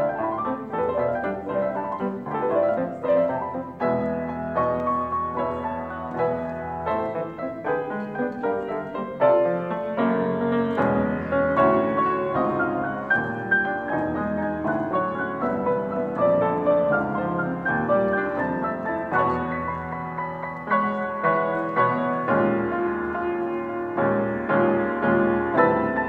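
Grand piano played four hands, a toccata: a fast, busy stream of quick notes and chords without a break.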